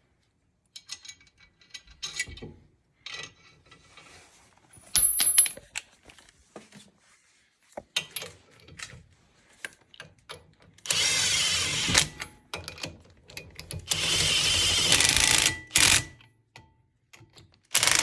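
Lug nuts and washers clinking as they are fitted to hold a brake rotor on a wheel hub, with a sharp metal clank about five seconds in; then a power tool runs the lug nuts down in two bursts, about a second and then about two seconds long.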